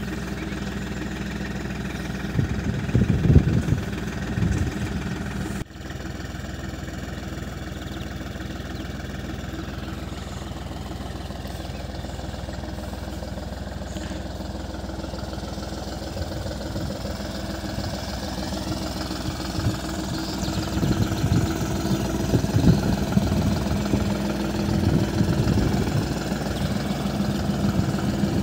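Massey Ferguson 3635GE tractor's diesel engine running steadily under load as it pulls a raspberry-planting trencher through tilled soil. Bursts of low rumble come about three seconds in and again over the last third.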